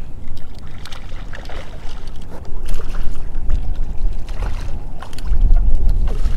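Wind rumbling on the microphone, heavier from about five seconds in, with light splashing as a hooked red drum thrashes at the water's surface beside a kayak.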